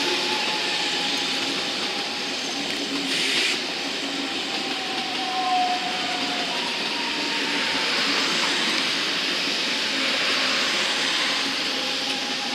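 ICE high-speed train rolling slowly through station points and curves: steady wheel-on-rail rumble and hiss with faint, drifting wheel-squeal tones. A short hiss comes about three seconds in.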